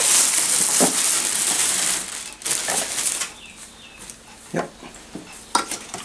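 A clear plastic wrapping bag rustling and crinkling as it is pulled off a vacuum cleaner's body, loud for about the first two seconds, then a few softer crackles and light knocks as the handling eases.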